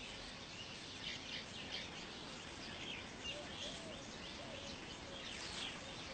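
Faint, scattered chirps of weaverbirds at their nests over a steady hiss.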